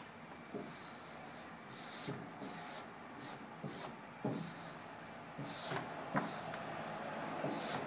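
Adhesive vinyl wrap being peeled from its backing paper and pressed onto an ATM panel by hand: paper rustling and a series of short rubbing swishes, with a few soft knocks.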